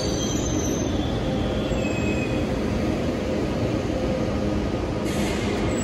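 Train running with a steady rumbling noise, and a brief hiss about five seconds in.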